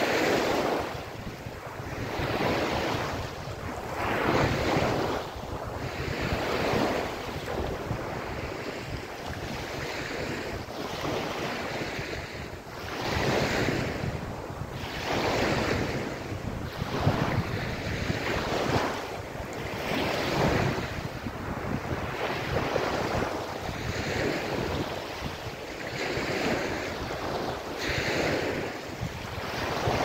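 Small waves breaking and washing up a sandy beach, the surf swelling and easing every couple of seconds.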